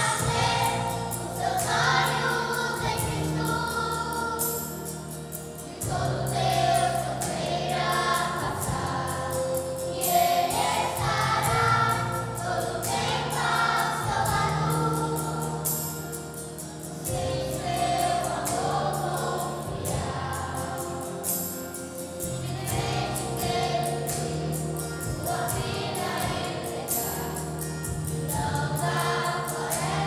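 Children's and youth choir singing a Portuguese-language church song, with sustained low accompanying notes beneath the voices.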